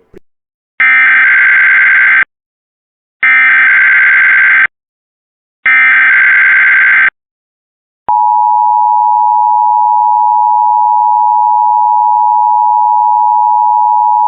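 Emergency Alert System header for a Required Monthly Test: three identical bursts of SAME digital data, each a harsh buzzing warble about a second and a half long with about a second's gap between them, then after a short pause the steady two-tone EAS attention signal begins and holds.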